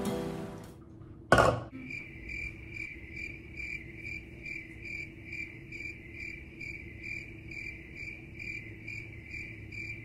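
Music fading out, then a sudden loud hit, then crickets chirping in a steady, even rhythm of about two to three chirps a second that cuts off abruptly near the end. This is the stock comedic "crickets" sound effect for an awkward silence.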